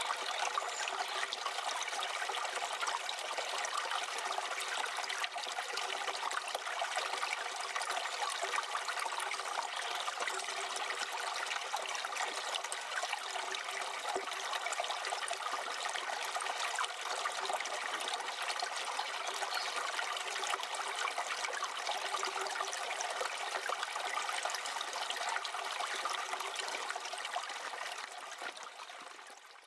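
Wood fire burning with a steady, dense crackle that fades out near the end.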